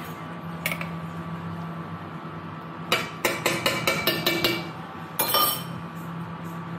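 A metal spoon clinking and tapping about eight times in quick succession, about three seconds in, as ginger paste is scooped from a glass jar into the frying pan. A short noisy rattle follows about five seconds in.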